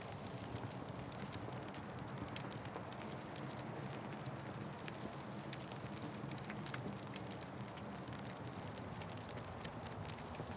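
Wood fire crackling: frequent small sharp pops and snaps over a steady low rumble.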